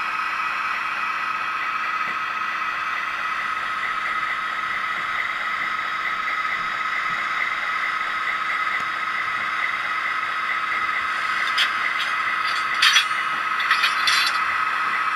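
Diesel locomotive engine sound from the LokSound v4 DCC sound decoder of an HO-scale SD45T-2 model, playing steadily through the model's small speaker. Near the end come a few short, sharp hissy clicks.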